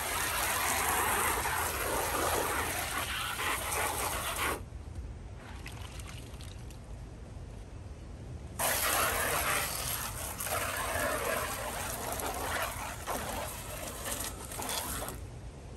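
Spray of rinse water hissing onto metal fan blades, in two spells: one of about four and a half seconds, then after a pause of about four seconds another of about six and a half seconds, each cut off sharply.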